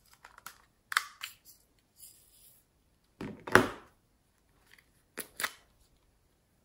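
Hard plastic toy and a plastic container being handled: scattered sharp clicks and taps, with one louder thud about three and a half seconds in.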